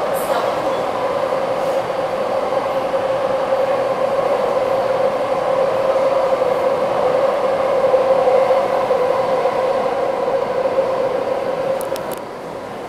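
Taipei Metro C381 train running in a tunnel, heard from inside the car: a steady rumble of wheels and running gear with a steady whine over it. The sound swells a little partway through and eases near the end, where a couple of faint clicks are heard.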